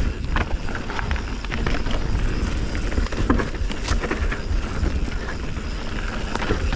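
Canyon Spectral 29 mountain bike descending dirt singletrack: tyres rolling and skidding on the dirt, with the chain and frame rattling and clicking over bumps. Wind buffets the chest-mounted camera's microphone throughout as a steady low rumble.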